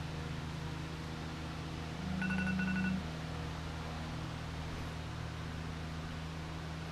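A smartphone lying on the bench buzzing once for about a second, with a faint electronic beep over it, about two seconds in. Under it runs a steady low shop hum.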